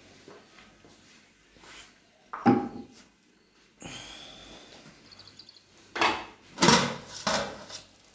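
Knocks and clatter of a stone weight and a steel pot lid being handled and set down on a kitchen counter. There are several separate clunks, the loudest cluster near the end.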